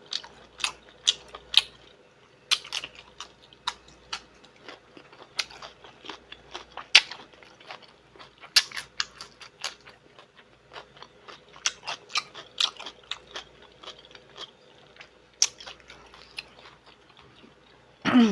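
A person chewing and biting food close to the microphone: irregular wet smacks and sharp clicks of mouth sounds, some louder bites now and then.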